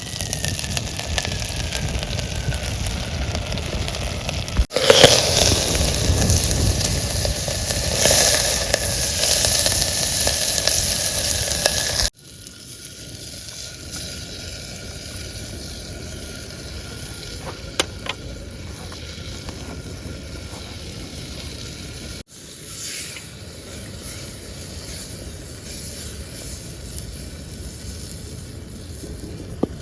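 Food sizzling as it fries in a cooking pot, a steady hiss broken into several takes by sudden cuts.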